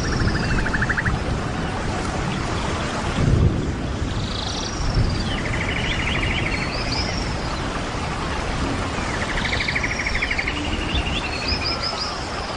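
Small birds singing short trilled phrases with upswept notes, repeating about every five seconds, over a steady rush of running water.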